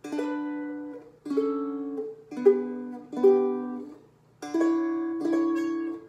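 Spruce-top Seagull Merlin M4, a four-string dulcimer-style instrument tuned to D, strummed in slow single chords, each left to ring and fade. There are about six strums as one chord shape is moved along the frets, with a short pause about four seconds in before a higher-sounding chord.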